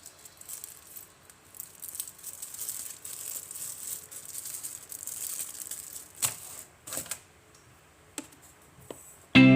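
Light handling noises, faint rustling and crackling with a few sharp clicks, like packaging and an object being handled. Music with guitar comes in near the end.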